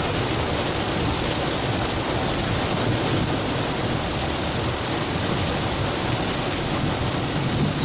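Heavy rain on a car's roof and windscreen, heard from inside the cabin as a steady rushing hiss, mixed with the car's road noise in slow traffic.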